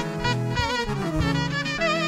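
Greek folk band playing live: a clarinet leads an ornamented melody with wavering pitch over steady bass notes and a rhythmic accompaniment.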